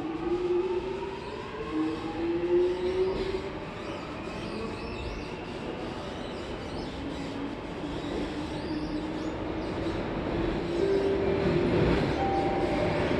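Singapore North East Line C751A metro train heard from inside the carriage as it pulls away: traction motor whine rising in pitch over the first few seconds, then running on with steadier tones over rail rumble that grows louder near the end.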